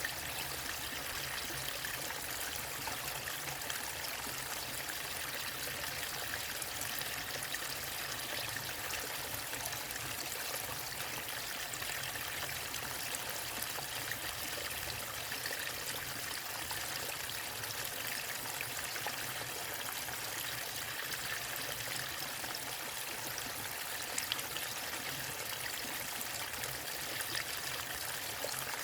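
Waterfall and river water rushing steadily, an even hiss without pauses or changes.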